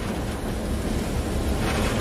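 Diesel locomotive running along the track, heard from its cab with the side window open: a steady low rumble with wind noise, slowly getting louder.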